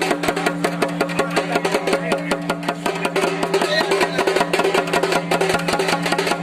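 Music with fast, dense drumming over a steady held drone and a melody line.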